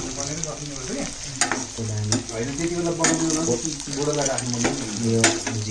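Pork and potatoes sizzling in a frying pan as a metal spatula stirs and turns them, with several sharp scrapes of the spatula against the pan. A low voice-like sound runs underneath.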